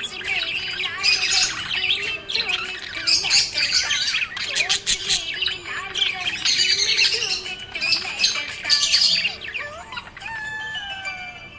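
Budgerigars chirping and warbling in a busy, continuous chatter of short chirps and quick pitch glides, thinning a little near the end.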